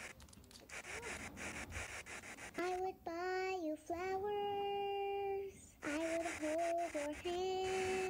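Scratchy drawing strokes rubbing across the surface for about two and a half seconds. Then a child sings a run of long, steady held notes with short breaks between them.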